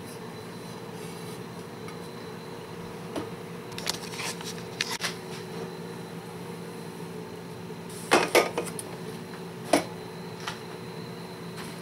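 Clinks and knocks of a slow cooker's stoneware pot and lid being handled: a few light knocks a few seconds in, then a louder double clink about eight seconds in and another sharp one shortly after.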